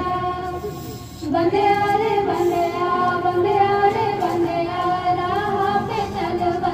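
Young women singing a song into a microphone with long held, wavering notes. The singing breaks off briefly about a second in, then resumes.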